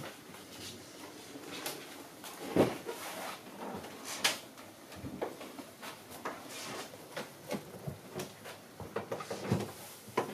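Irregular knocks and clicks of someone moving about a yacht's wooden interior: footsteps on the cabin floor and a cabin door or lockers being handled. The loudest knock comes about two and a half seconds in.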